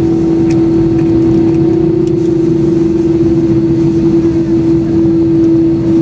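Airbus A321-200's jet engines heard inside the cabin: a steady whine over a dense low rumble, with no change in pitch.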